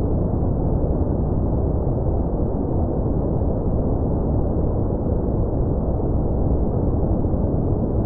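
Steady deep rumble of noise with no distinct tones, heavy in the bass and muffled: a made-up sound effect.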